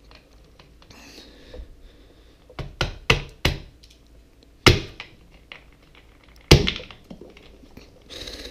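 Sharp knocks and clacks as a metal multitool grips and twists the cap of a plastic 1-litre soda bottle, about half a dozen, the two loudest a couple of seconds apart in the middle. A brief hiss comes near the end.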